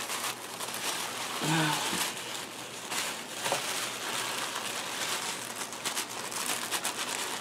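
Tissue paper and packing paper rustling and crinkling as a wrapped plant is handled in a cardboard box, with many small irregular crackles.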